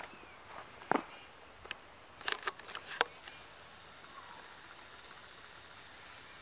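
Footsteps crunching over a thin layer of snow on grass: a few sharp steps in the first three seconds, the loudest about a second in and at three seconds. After that the steps stop and only a faint steady hiss remains.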